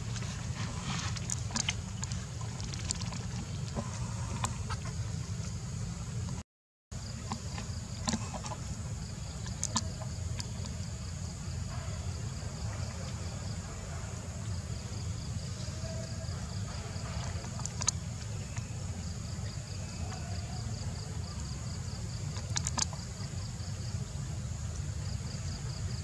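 Outdoor ambience: a steady low rumble, with a faint high insect drone pulsing evenly and a few small clicks. The sound cuts out briefly about six and a half seconds in.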